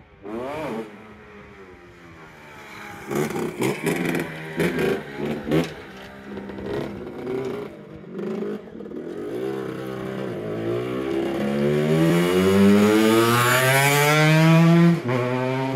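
A motor vehicle's engine being revved: short choppy blips a few seconds in, then a long rev that climbs steadily in pitch and gets louder before its pitch drops abruptly near the end.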